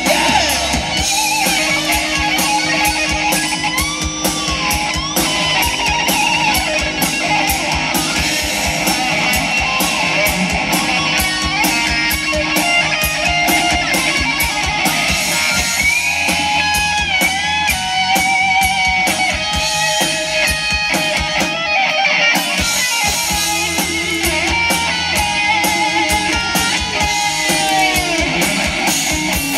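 Live rock band playing an instrumental passage without vocals: an electric lead guitar with bent notes over distorted rhythm guitar, bass guitar and a steady drum beat.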